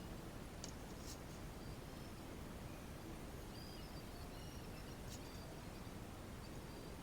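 Faint steady background noise with a few short, high chirps and soft ticks.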